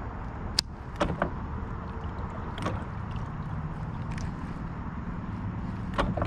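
Sharp clicks and knocks of fishing tackle being worked from a small boat, over steady water and outdoor noise: a few single clicks near the start and one near the end.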